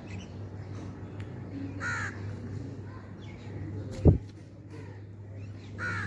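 Common myna giving two short harsh calls, about two seconds in and again near the end, over a steady low hum. A single loud thump comes about four seconds in.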